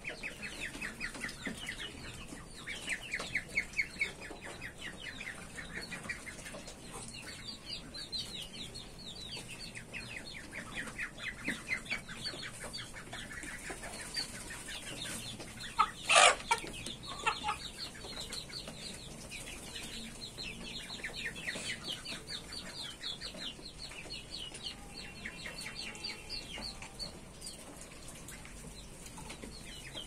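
A mixed flock of chickens and ducks calling while they feed, with repeated runs of rapid, high chirping calls. One sudden loud sound stands out about 16 seconds in.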